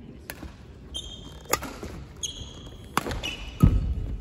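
Badminton rally on a wooden sports-hall court: sharp racket strikes on the shuttlecock about every second and a half, sneaker squeaks on the floor in between, and a heavy footfall thump near the end.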